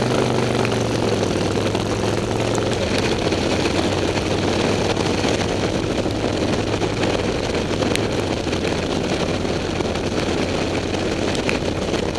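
Harley-Davidson V-twin motorcycle engine running steadily at cruising speed, with a constant rush of wind and road noise from riding on a wet road.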